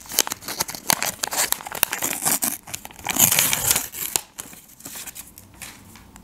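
A small hand-made paper packet being torn open by hand: paper tearing, crinkling and rustling in quick crackly strokes, with a louder stretch of rustling a little past halfway as a paper card is pulled out.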